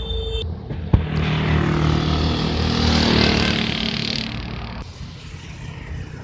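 A road vehicle driving past, its engine and tyre noise swelling to a peak about three seconds in and fading away. A horn note cuts off right at the start, and there is a sharp click about a second in.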